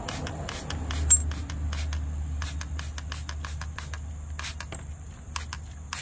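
Trigger spray bottle of diluted Simple Green degreaser squeezed again and again onto a motorcycle's rear brake caliper bracket, short spritzes of a couple to three a second. The spray is wetting the parts to loosen the brake grit.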